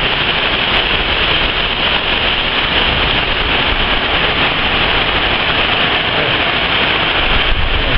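Heavy storm rain pouring down, a loud steady hiss, with a low rumble of wind rising near the end.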